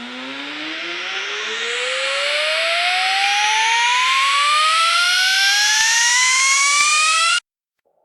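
Dental chair's lift motor whining as the chair rises: one tone that climbs steadily in pitch and grows louder for about seven seconds, then cuts off suddenly.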